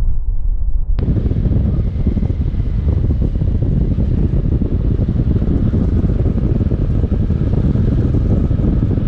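Heavy wind noise buffeting the microphone with a motorcycle running underneath, as when riding at speed. About a second in the sound changes abruptly from a muffled low rumble to a brighter, fuller rush.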